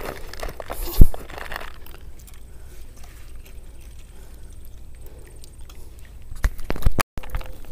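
Fishing tackle being handled right by the microphone: a sharp, loud knock about a second in, then faint rubbing, and a few sharp clicks near the end.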